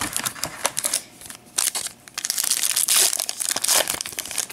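Foil wrapper of a trading-card pack being torn open and crinkled by hand: a short spell of crackling, a brief lull, then a longer, louder stretch of crinkling as the wrapper is peeled back from the cards.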